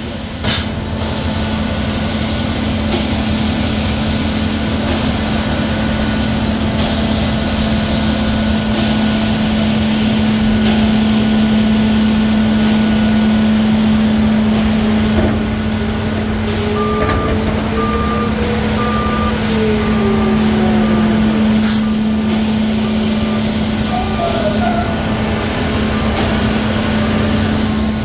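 Concrete mixer trucks running in a ready-mix plant yard: a steady diesel drone with a constant hum, and engine pitch rising and falling. From a little past halfway, a truck's reversing beeper sounds about once a second. A few brief sharp sounds are scattered through it.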